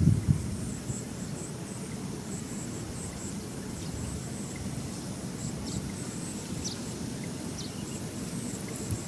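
Insects chirping in a steady run of high pulses, about three a second, with a few short high bird chirps scattered through and a low rumble underneath.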